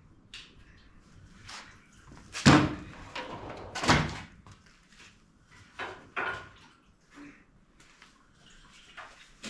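Knocks and clanks of tools and parts being handled while a pickup truck's front end is taken apart. Two loud knocks come about two and a half and four seconds in, and a couple of lighter clanks follow a little later.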